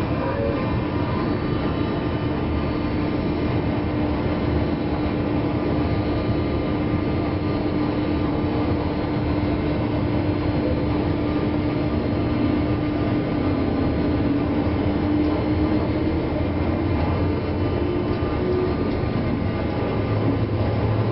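Running sound inside a JNR 201-series electric motor car, heard from right above its armature chopper control equipment. Under the steady rumble of wheels on rail sits a continuous chopper whine, which grows weaker and more broken from about three quarters of the way through.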